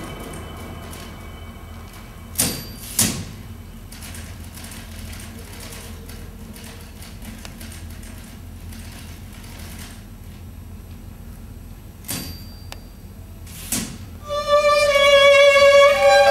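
Low room hum broken by a few sharp knocks. About fourteen seconds in, music starts loudly: a bowed string instrument, like a violin, playing long held notes.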